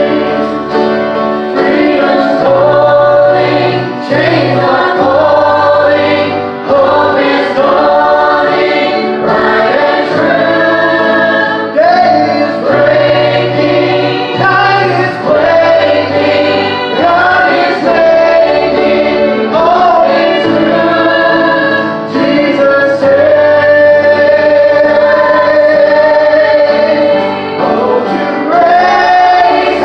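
Gospel song sung by a small group of male and female voices into microphones, with acoustic guitar accompaniment and held bass notes underneath.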